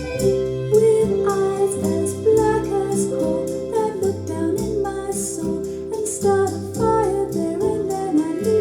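Recorded music with a singing voice over instruments and a steady bass line, played back on a Kuzma turntable through Martin Logan electrostatic speakers.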